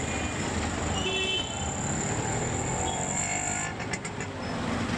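Busy street traffic with many auto-rickshaw engines and cars running, and short horn toots about a second in and again past the middle.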